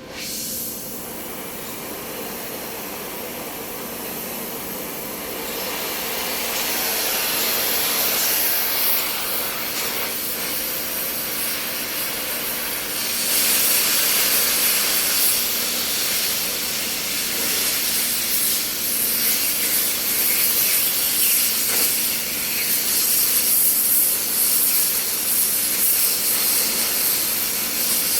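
Welding: a continuous hissing, crackling sizzle that starts suddenly and gets louder about halfway through, over a faint steady hum.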